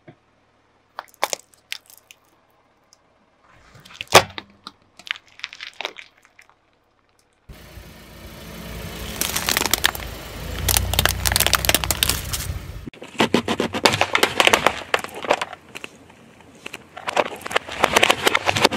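A car tyre rolling slowly over plastic objects and crushing them. For the first few seconds there are scattered sharp cracks and pops. Then, from a little before halfway, comes a long run of dense crackling and crunching plastic over a low rumble of the rolling wheel.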